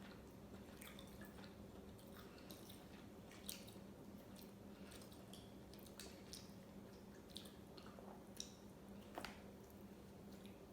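Faint, scattered wet clicks and smacks of close-miked chewing of seafood, with a few sharper clicks about three and a half, six, seven and a half, eight and a half and nine seconds in. A steady low hum runs underneath.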